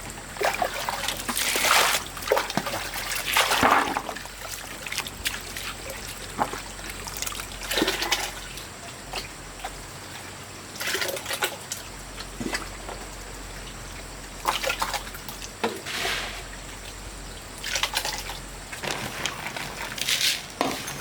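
Water splashing and pouring in irregular bursts, with pauses of a few seconds between them.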